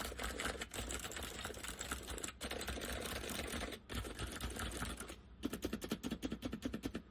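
Acer 6312K7 keyboard with Acer semi-mechanical switches being typed on fast, a dense run of keystrokes with a deep sound from the case and two short pauses. A little past five seconds in it changes to an even run of quick separate clicks, about nine a second, which stops near the end.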